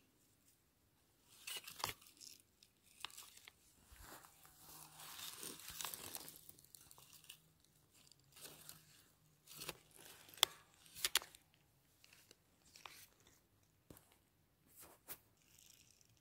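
Faint close rustling and crackling of dry plant stems and leaves brushing against the phone, with scattered sharp clicks and a longer rustle about four to seven seconds in.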